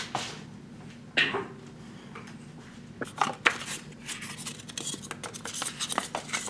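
Handling of a plastic tub and white plastic lab containers on a bench: scattered knocks and clicks, with a sharper knock about a second in and a run of small quick clicks near the end, over a steady low hum.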